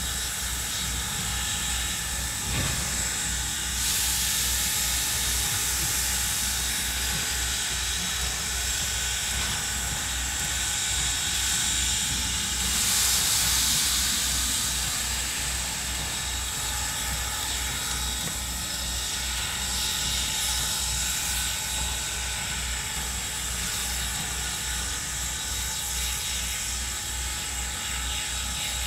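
A Norfolk and Western No. 475 4-8-0 steam locomotive working slowly, with a steady low thumping about two to three times a second. Steam hisses louder twice, about four seconds in and again around thirteen seconds, as steam is blown from the cylinder cocks.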